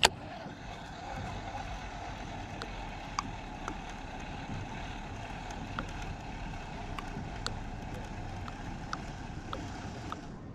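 Steady soft outdoor noise of a kayak on calm water, with small scattered ticks from handling the rod and reel, and one sharp knock right at the start.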